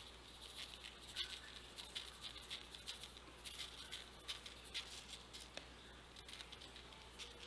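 Small seeds shaken from a measuring spoon, pattering faintly onto a wet mesh net in a plastic tray: a scatter of light, irregular ticks.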